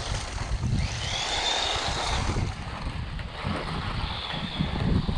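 Small brushed electric motor and gearing of a 1:18 DEERC 9300 RC truck running with its speed governor unlocked, a high whine coming up about a second in and again near the end, over tyre and wind rumble on the microphone.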